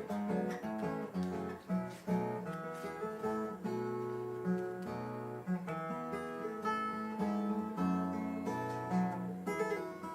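Acoustic guitar music: an instrumental passage of picked and strummed notes after the singing stops.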